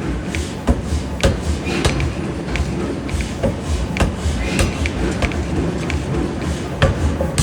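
Forge shop noise: irregular sharp metal impacts, roughly one every half second to second, over a steady low machinery rumble.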